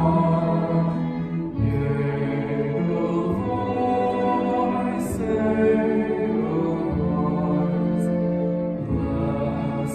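Slow song: several voices singing together over instrumental accompaniment, with long held notes.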